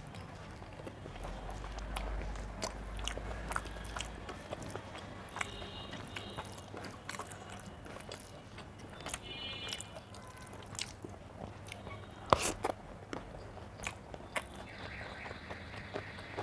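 A person chewing a meal of rice and curry close to the microphone, with irregular wet clicks and smacks; the sharpest smack comes about twelve seconds in.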